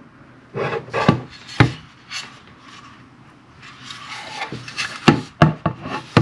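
Hard 3D-printed plastic fan housing being handled and fitted together: scattered sharp clicks and knocks with bouts of scraping and rubbing of plastic on plastic.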